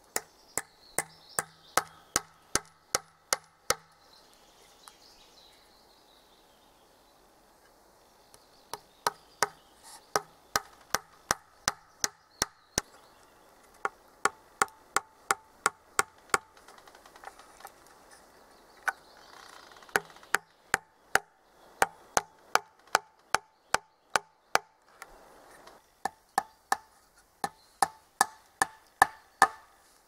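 Hammer blows driving nails into wood: five runs of quick, even strikes, about three a second, each blow with a short ring, and brief pauses between runs.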